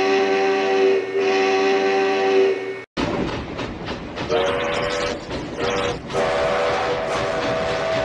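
Sierra Railway No. 3's steam whistle: two long blasts of a steady, chord-like whistle that cut off suddenly, then several more blasts, short and then long, over the noise of a running steam train.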